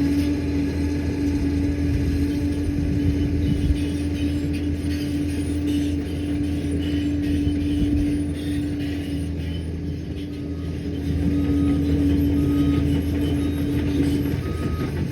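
Liebherr PR 746 crawler dozer's diesel engine running steadily, with a constant whining tone over the low rumble. The sound eases briefly about ten seconds in, then picks back up.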